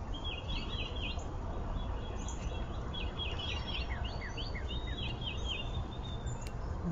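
Small wild birds chirping in quick runs of short, downward-sweeping notes, in several bursts, over a steady low background rumble.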